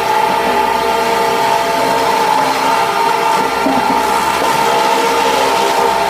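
Wood shaving production machinery running steadily: a constant mechanical din with a steady whining tone over it.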